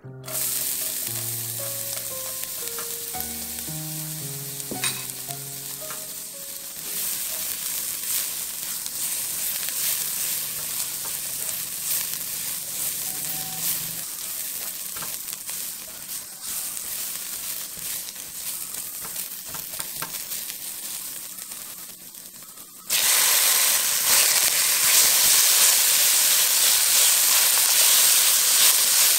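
Minced garlic and ginger sizzling in hot oil in a nonstick wok, stirred with a silicone spatula. Late on, ground chicken hits the pan and the sizzle turns suddenly much louder and stays loud.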